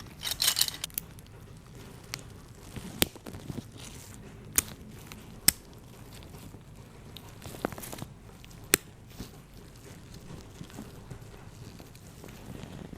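Plastic blind-box packaging crinkling for about a second, then scattered sharp clicks and taps of small plastic toy pieces being handled.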